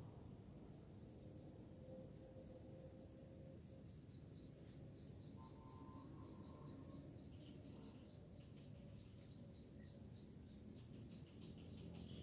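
Near silence: faint outdoor ambience with short, high, rapid chirping trills that come back every second or so.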